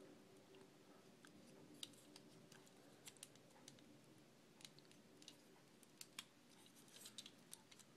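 Faint, scattered clicks of a plastic Transformers figure's joints and parts being rotated and pushed into place, over a low room hum.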